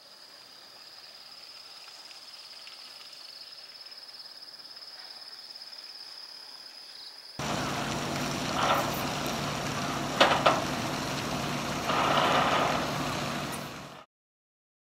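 Faint outdoor ambience with a thin, steady high whine, then, about seven seconds in, a small passenger ferry's engine running steadily at the pier, much louder, with two sharp knocks close together around the middle. The sound cuts off about a second before the end.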